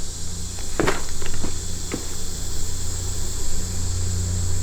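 Steady, high-pitched chorus of insects, with a steady low rumble underneath and a few light clicks about a second in.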